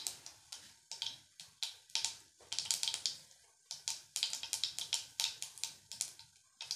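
Mustard seeds spluttering in hot oil in a pan: an irregular run of sharp little pops and crackles in quick clusters.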